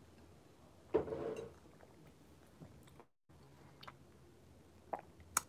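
Quiet chewing of crunchy food with a few small clicks, and one short louder knock about a second in. The audio drops out completely for a moment near the middle.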